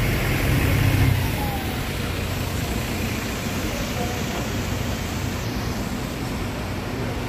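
Mercedes-Benz Citaro single-deck diesel bus driving past close by and pulling away, its engine rumble loudest about a second in and then fading slowly as it moves off.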